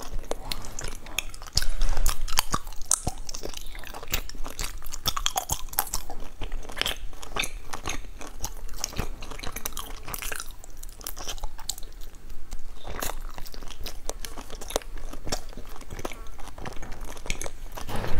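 Close-up chewing of a sticky glutinous rice cake: many small, irregular wet clicks and smacks of the mouth, with a louder thump about two seconds in.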